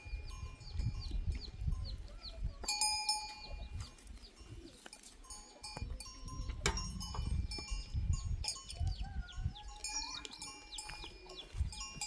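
Bells on a grazing flock clinking and ringing, with short high chirps repeating over them and an uneven low rumble.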